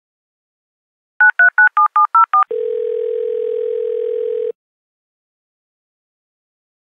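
A telephone number dialed on a touch-tone keypad, seven quick two-tone beeps, then a ringback tone on the line: one steady ring about two seconds long, the number ringing at the other end.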